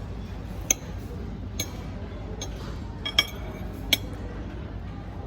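Cutlery clinking against a plate about five times in short, sharp strikes, the loudest a little past three seconds in, over a steady low background hum.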